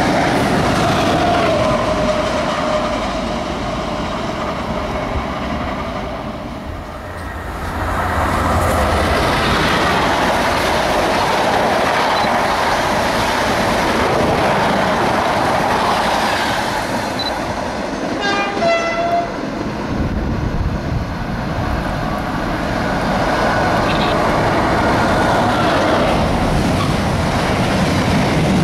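Locomotive-hauled passenger train passing at speed through a station and fading away, then a container freight train approaching, sounding one short horn blast about two-thirds of the way through, and its loaded container wagons rumbling and clattering past the platform.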